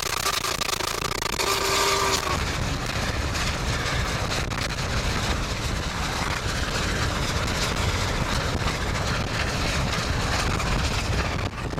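Union Pacific 844's steam whistle blowing a chord of several steady tones for about two seconds at the start. Then comes a steady rushing noise from the moving chase car and the running train.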